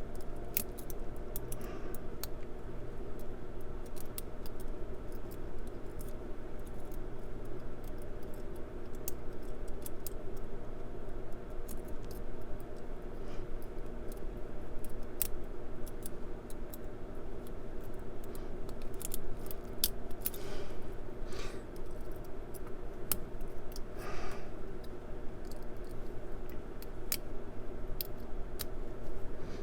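Lock picks working inside a Brinks 50 mm solid brass padlock: scattered light metallic clicks and scrapes of the tension wrench and pick against the pins, over a steady low hum.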